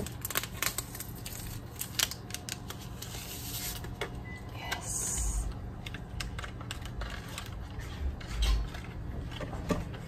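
Rummaging through a freezer: plastic storage containers and frozen packages being shifted, giving many light clicks and clatters, a short rustle, and a couple of soft thumps.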